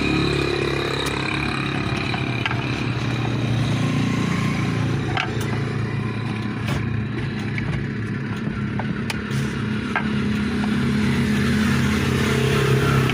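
Washing machine motor running steadily with a low hum, newly wired and being tested, with a few light clicks over it.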